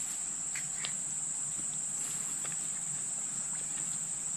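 Insects droning steadily on one high, unbroken pitch, with a few faint clicks in the first second.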